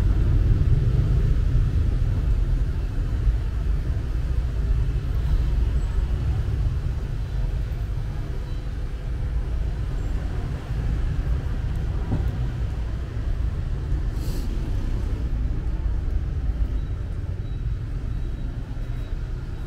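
Traffic on a city street: a steady low rumble of passing vehicles that slowly fades, with a brief high hiss about 14 seconds in.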